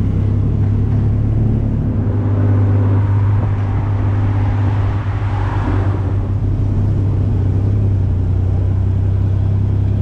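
A tuk-tuk's engine runs steadily with a low hum while the three-wheeler drives along, mixed with road and traffic noise. A hiss of passing traffic swells up in the middle and fades again.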